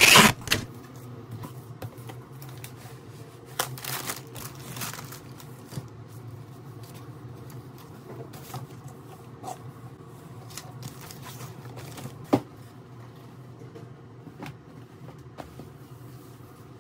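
Paper and cardboard being handled: tissue paper rustling and crinkling as a parcel is unpacked, with scattered clicks and taps. A brief loud burst of noise right at the start and a sharp knock about twelve seconds in.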